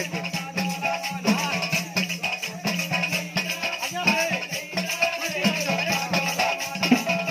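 Krishna bhajan kirtan: voices singing over fast, continuous percussion, with a steady low drone held underneath.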